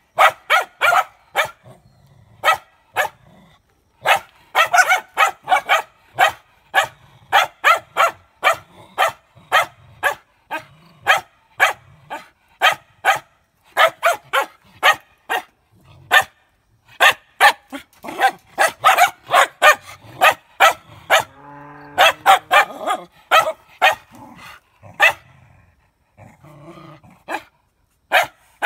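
Samoyed dogs barking rapidly and repeatedly, in runs of sharp barks several a second with short pauses between runs, and a brief low growl about three-quarters of the way through.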